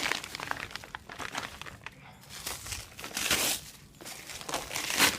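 Plastic packaging wrap crinkling and rustling in irregular bursts as it is pulled off and handled, with the loudest rustles about three seconds in and near the end.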